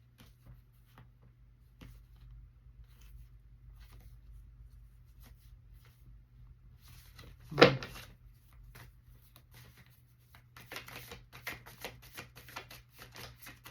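Tarot cards being handled and shuffled: scattered soft card flicks, one loud thump about halfway through, then a quick dense run of shuffling sounds in the last few seconds, over a faint steady low hum.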